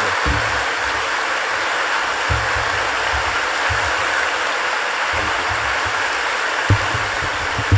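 Large hall audience applauding steadily, with a couple of low thumps near the end.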